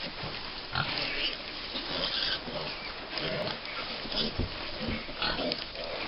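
Five-week-old American Guinea Hog piglets grunting and giving short squeals, several animals calling at once in quick, irregular bursts.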